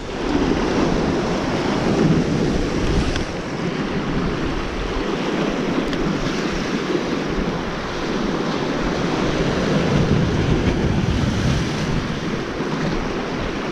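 Sea swell surging and washing over rocks close below, with strong wind buffeting the microphone.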